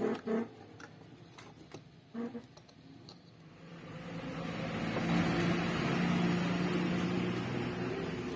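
A few light clicks of handling, then a small electric motor starts a steady whir with a low hum that rises over a second or so and keeps running.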